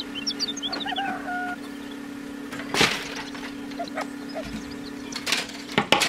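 Thin copper tubing handled and bent by hand, giving short scraping, crackling rattles about halfway through and twice near the end, over a steady low hum.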